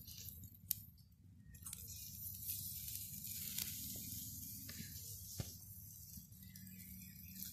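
Faint sizzling hiss and a few sharp pops from deer and turkey meat skewers grilling on a metal grate over wood embers, over a low rumble. The hiss builds about a second and a half in.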